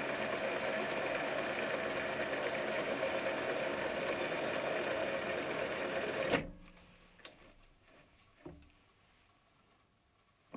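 Mini lathe running under power while single-point threading a fine thread on a metal spindle with a carbide threading insert: a steady mechanical whir that stops abruptly about six seconds in. A few faint knocks follow in the quiet.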